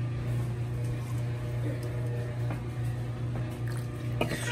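A drink being poured from a bottle into a cup, over a steady low hum.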